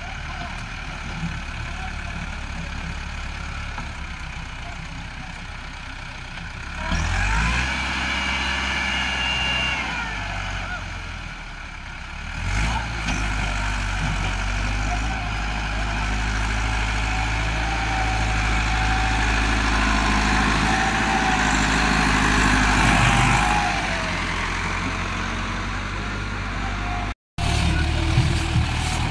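Diesel farm tractor engine labouring under load as it pulls a trolley heaped with soil through loose sand. It revs up about seven seconds in, then again for about ten seconds from the middle. Near the end the sound cuts out briefly and another tractor's engine runs loud.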